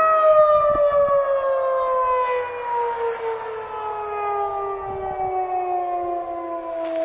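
Federal Signal 2001-DC rotating electromechanical outdoor warning siren winding down, its single tone falling steadily in pitch.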